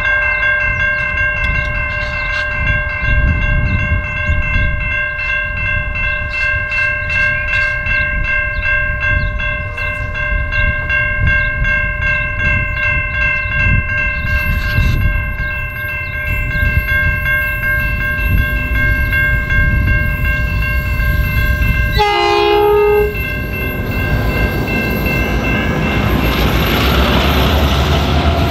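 Pacific National X class diesel locomotives hauling a loaded grain train, their engines giving a low rumble as they approach, with a level crossing bell ringing rapidly and steadily over it. About two-thirds through, a short horn blast sounds, and then the locomotives' engine rumble grows louder as they pass close.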